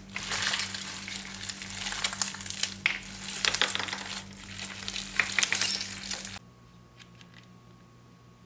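Slime being worked by hand, a dense run of wet crackling and squishing pops that cuts off suddenly about six seconds in, leaving faint room tone.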